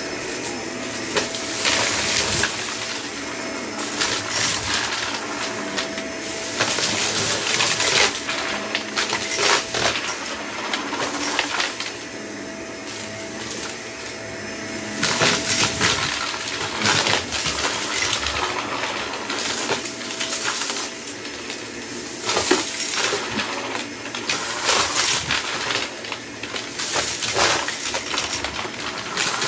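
Upright vacuum cleaner running over carpet, sucking up scattered small debris that crunches, clicks and rattles up into the dust bin. The rattling comes in busier spells over a steady motor hum.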